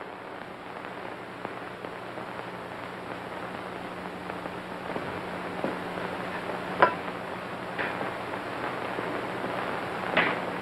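Steady hiss and low hum of an old optical film soundtrack, with a few faint knocks spaced about a second apart in the second half, the clearest one about seven seconds in.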